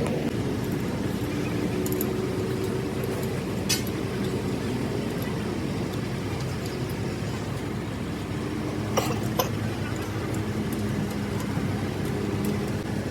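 A diesel engine running steadily at idle, with a few sharp metallic clinks, one about four seconds in and two close together about nine seconds in.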